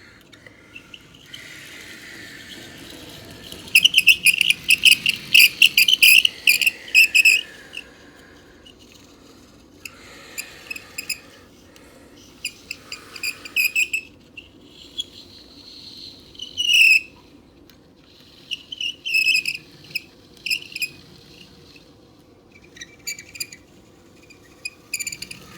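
Electronic sound effect from a toy airliner model's sound chip, played through its small speaker: bursts of rapid, high chirping that sound like a bird. The bursts come again and again, loudest a few seconds in and once more about two thirds of the way through.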